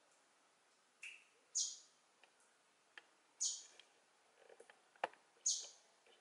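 A small bird giving short, high chirps, three loud ones about two seconds apart with a softer, lower one about a second in. A sharp click comes about five seconds in.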